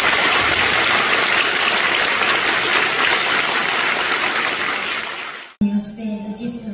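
Audience in a hall applauding, an even clapping that eases slightly and then cuts off abruptly about five and a half seconds in.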